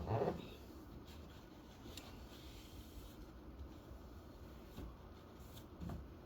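Faint rubbing and handling noises of cleaning up, with a brief louder bump at the very start and a couple of small knocks near the end.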